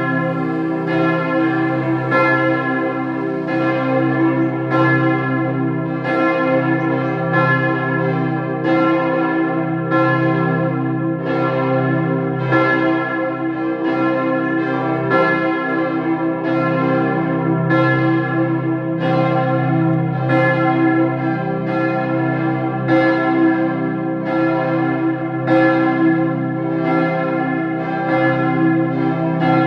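Several church bells ringing together in a full peal. Strikes come in an overlapping, uneven succession about one to two times a second, and each bell's tones keep ringing under the next strike.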